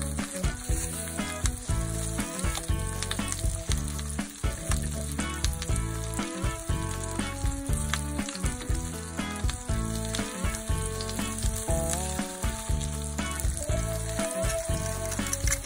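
Tomato slices sizzling as they fry in oil in a nonstick pan, with a continuous crackle. Background music with a steady beat plays underneath.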